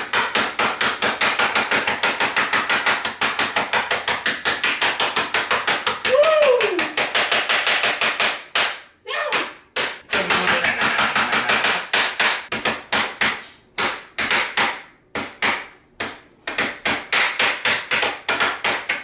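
Meat mallet pounding Smarties candies in a plastic Ziploc bag against a countertop, crushing them to powder: rapid repeated blows about five a second, a short pause about eight and a half seconds in, then the pounding resumes a little slower.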